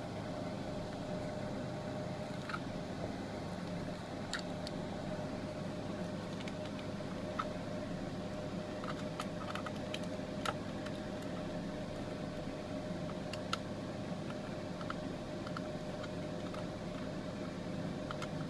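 Scattered small clicks and taps of wire ends and a tool being worked into the terminals of a solar charge controller, over a steady low electrical hum.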